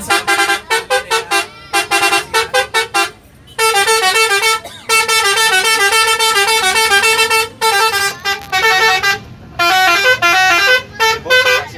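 Bus telolet horn playing a fast multi-note melody: quick runs of short toots, with longer stretches of continuous notes in the middle.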